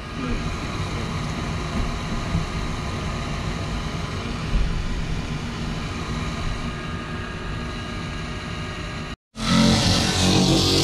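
Small bathroom extractor fan running with a steady whirring hum, its outside cowl pinched by a too-small hole in the van wall and not opening. About nine seconds in the sound cuts off briefly and a louder, rushing noise follows.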